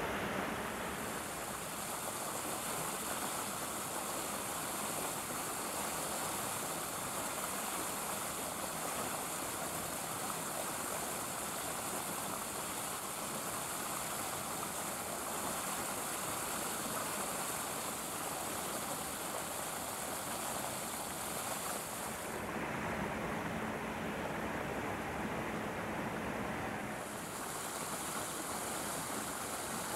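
Steady outdoor background noise, an even hiss with no distinct events; about three quarters of the way through, the high part of the hiss drops out for about four seconds, then returns.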